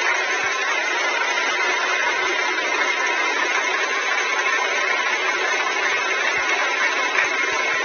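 Road roller's engine running steadily, an even machine noise that does not change.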